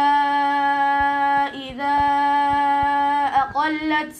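A boy reciting the Quran in a melodic chant, drawing out one long steady note, pausing briefly, then holding another long note. He ends with a short wavering turn of the voice.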